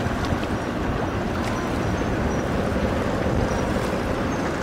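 Steady low rumble and rush of water from a large container ship under way, its bow pushing a wave through the river.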